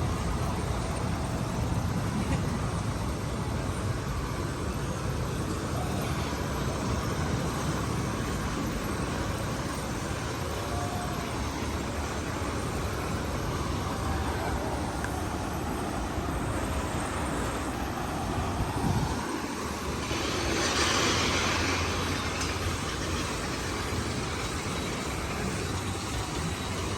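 Steady road traffic noise with a low rumble, swelling louder about twenty seconds in as something passes.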